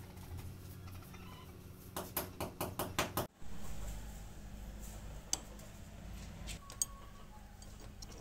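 Metal parts of a scissor car jack clicking and knocking as they are handled and fitted together: a quick run of about eight clicks, then two single clicks later on.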